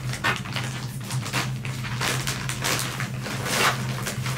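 Packaging rustling and crinkling in a series of irregular short scrapes as a package is opened by hand, over a steady low hum.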